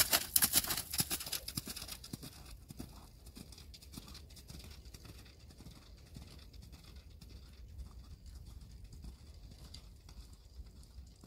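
Hoofbeats of a horse trotting on arena footing patched with snow, loud as it passes close in the first couple of seconds, then fainter as it moves away.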